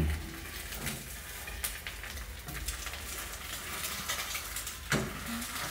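Egg frying in hot oil in a small non-stick pan: a steady sizzle with scattered crackles and clicks.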